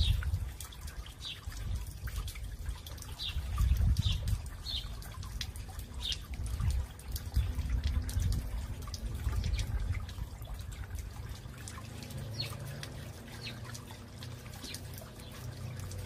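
Water trickling and dripping down the wet stones of a boulder fountain into its pool, a steady splashing wash. A bird chirps briefly about once a second, pausing in the middle.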